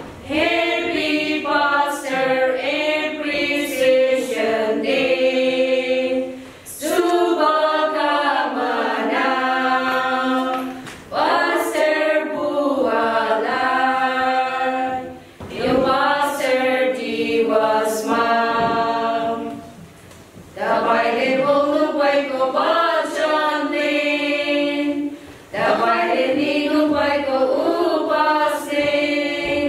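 A women's choir of seven singing a hymn unaccompanied, in phrases broken by short pauses for breath every five seconds or so.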